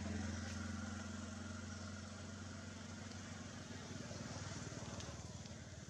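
A motor vehicle's engine running with a steady low hum, fading gradually as it moves away.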